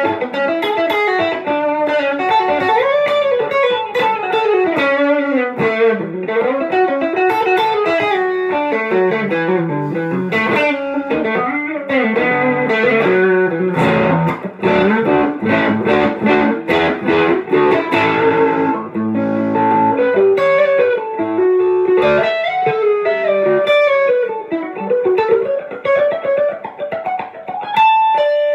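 A 1992 Gibson Les Paul Studio electric guitar, amplified, playing improvised lead lines with many notes bent up and down and quick picked runs.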